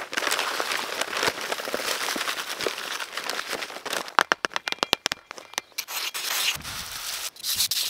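Dry high-strength concrete mix pouring from a paper bag into a cardboard form tube, with the bag rustling and crinkling. About four seconds in there is a quick run of sharp taps, and after that a trowel scrapes and pats the surface of the dry mix.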